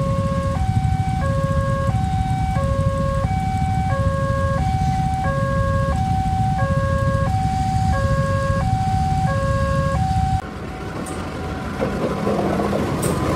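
Railway level-crossing warning alarm sounding an alternating two-note electronic tone, each note about two-thirds of a second, over a low rumble of engines. It cuts off abruptly about ten seconds in, leaving a quieter rumble with a few sharp clicks.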